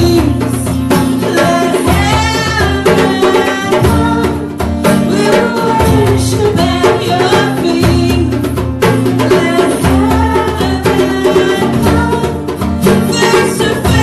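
Church worship band playing a song with singing voices over sustained bass and chords.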